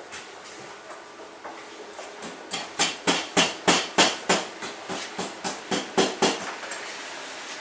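Hammer blows: a quick series of about fifteen sharp strikes at roughly three a second, the loudest in the middle of the run, then stopping.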